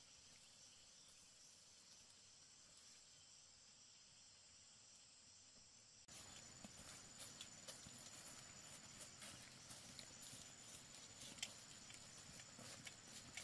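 Faint outdoor background with a steady high insect whine. About six seconds in it gives way to a louder stretch of scattered light clicks and taps.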